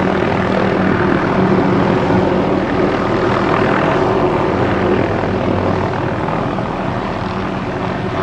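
Helicopter flying past, its rotor and engine making a steady loud drone with a low hum that slowly gets quieter as it moves away.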